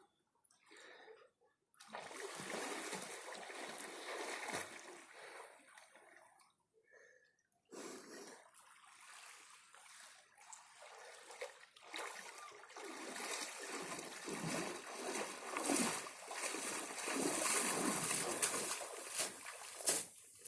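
Sea water splashing and sloshing close by: a burst about two seconds in, a short lull, then splashing that builds and grows louder from about eight seconds in.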